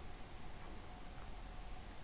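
Quiet room tone: a faint steady hiss with a low hum and a faint steady tone, with no distinct sound events.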